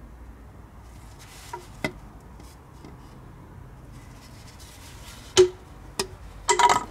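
A few light clicks and knocks as a plastic cone tool is handled and fitted over a driveshaft's outer CV joint. The loudest is a sharp knock about five and a half seconds in, followed by a short rattle near the end.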